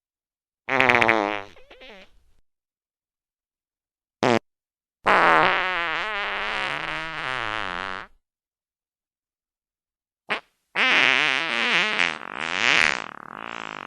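A string of fart sound effects with silent gaps between them: a short one about a second in, a brief blip near four seconds, a long one of about three seconds whose pitch wobbles up and down, a tiny blip, then another long one near the end.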